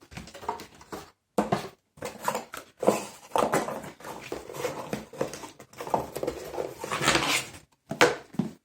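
Cardboard boxes and packaging being handled: irregular rustles, scrapes and knocks.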